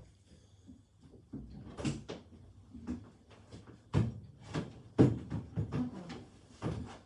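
Irregular knocks and thumps of things being handled, several over a few seconds, the loudest about five seconds in.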